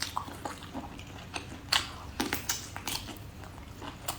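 A person chewing and biting boiled octopus tentacle, with irregular wet clicks and mouth smacks.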